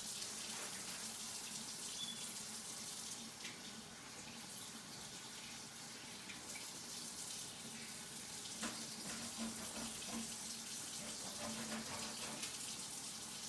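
Kitchen tap running into the sink as raw chicken wings are washed under it, with occasional small knocks and clicks of handling.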